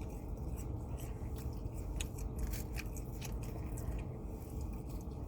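A person chewing and biting fast food, with many small sharp wet mouth clicks scattered irregularly, over a steady low hum.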